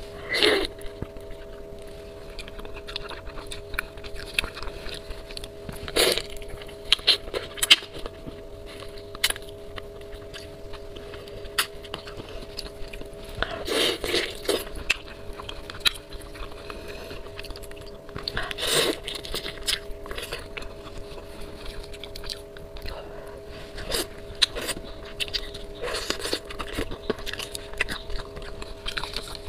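Close-up eating sounds of a person eating saucy bullfrog meat: wet chewing, biting, sucking and lip smacks, with sharp mouth clicks and a few louder sucking slurps. A steady faint hum sits under it.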